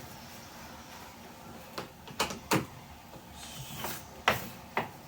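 About five sharp clicks and knocks, starting about two seconds in, as dishwasher parts are handled and fitted back together during reassembly.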